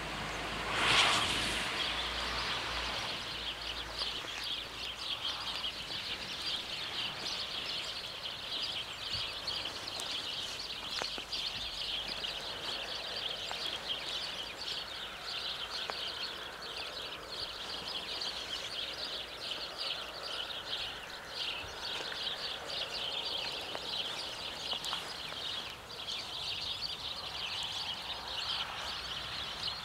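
Small birds chirping densely and steadily, with a brief louder rush of noise about a second in.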